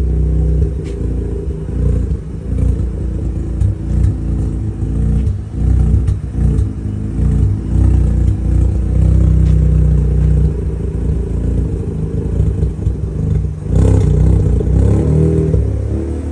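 Mazda RX-8's two-rotor Renesis rotary engine running with an uneven, fluctuating note, choppier in the first half and steadier later.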